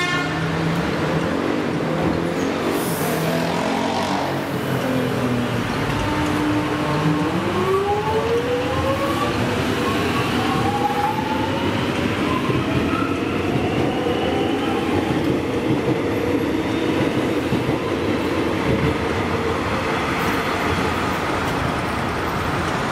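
X'Trapolis electric train pulling out of the station. Its traction motors give a whine that rises in pitch in several layers as it accelerates, starting about seven seconds in and levelling off after about fifteen seconds, over a steady rumble of wheels and running gear.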